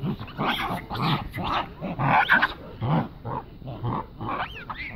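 Animals calling in a rapid string of short yelps, several a second, with a high squeal that glides up and down near the end.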